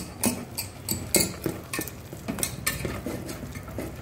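Wire whisk stirring wheat flour and water into batter in a stainless steel bowl, clicking and scraping against the metal sides in an irregular run of strokes, roughly three a second.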